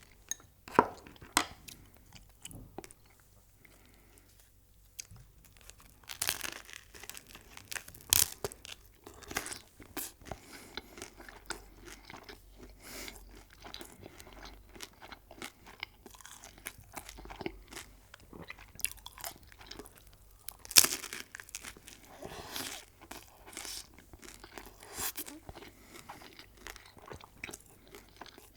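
Close-miked eating of crunchy food: bites and chewing with sharp crunches, the loudest about a second in, around eight seconds in and around twenty-one seconds in, with quieter chewing between.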